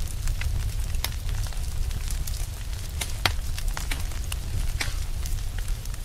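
Fire crackling: irregular sharp pops and snaps over a steady low rumble of flames, with one louder pop a little past three seconds in.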